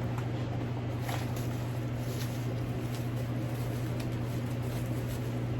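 A steady low hum throughout, with a few faint light clicks and rustles of a handbag and its packaging being handled.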